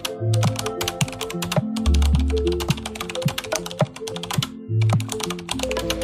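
Rapid, irregular clicking of typing on a computer keyboard, played as a sound effect over background music with a bass line and held notes; the clicking pauses briefly past four seconds and gives way to a hiss near the end.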